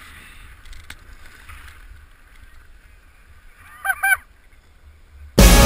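Low wind rumble on an action camera's microphone while skiing down a piste, with two short high-pitched calls that rise and fall about four seconds in. Loud music cuts in near the end.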